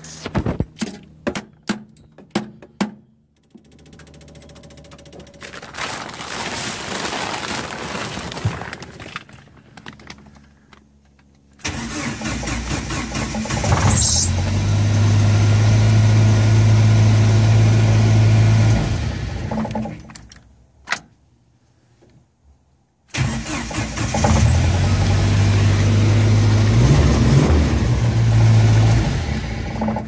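A screwdriver banging hard on a Jeep YJ Wrangler's engine computer (ECM), a quick run of sharp knocks, then the engine cranks, fires and runs steadily for several seconds before stopping, and a few seconds later starts and runs again. Knocking the computer gets the hesitant engine to start, the sign of an ECM going bad (the 'lazy PCM' delayed-start fault).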